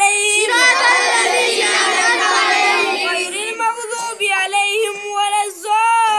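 A boy chanting Arabic prayer recitation aloud in a melodic, drawn-out voice with long held notes. For a couple of seconds near the start, several other children's voices overlap with his.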